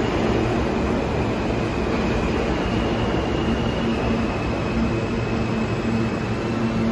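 New York City subway train running through the station: a steady rumble of wheels and motors with a low hum and a faint high whine.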